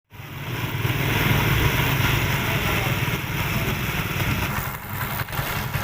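Motorcycle engine running steadily with a rasping, grinding noise on top, typical of a drive chain that has been adjusted too tight. A sharp knock comes about five seconds in.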